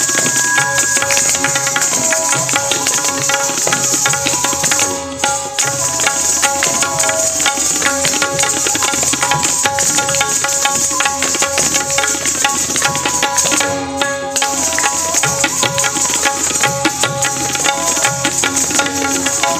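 Tabla playing a dense, fast run of strokes over a melodic accompaniment of held notes, Kathak dance music. The music drops out briefly twice, about five seconds in and again near fourteen seconds.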